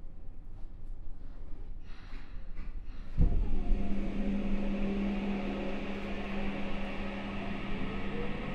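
Saitama Railway 2000 series train's Mitsubishi IGBT inverter and traction motors starting up about three seconds in, as the train pulls away from a standstill. It sets in suddenly with a steady low hum, and its tones climb in pitch as the train accelerates. Before that there is only a low rumble with a few faint clicks.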